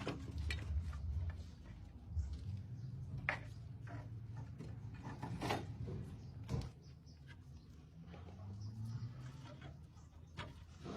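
Scattered sharp clicks and knocks over a low steady rumble, the loudest right at the start and a few more spread through the rest.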